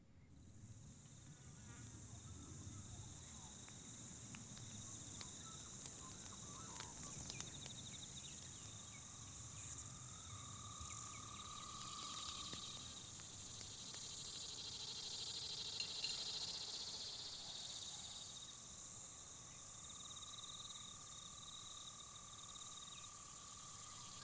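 A chorus of insects chirring steadily, several high trills overlapping at different pitches. It fades in over the first couple of seconds.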